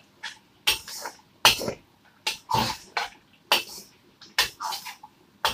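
Metal spatula scraping and clattering against an iron karahi while stirring mutton, in short irregular strokes about twice a second.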